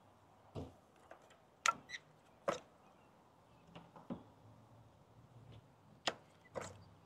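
Scattered light clicks and knocks, about seven in all, of hands working a plastic ignition coil and its connector loose from a Honda Civic's engine valve cover.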